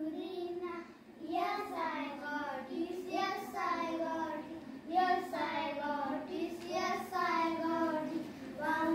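Young children singing an English action rhyme together in a sing-song chant.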